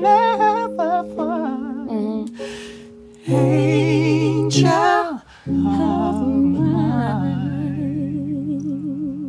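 Live singing of a slow R&B ballad: a voice sings wordless runs with heavy vibrato over sustained keyboard chords.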